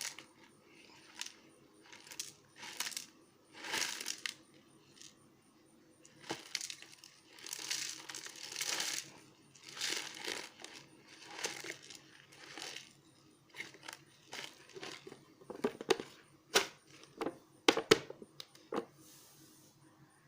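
Plastic instant-noodle packet being crinkled and torn open in a series of short rustling bursts, with a few sharp clicks toward the end.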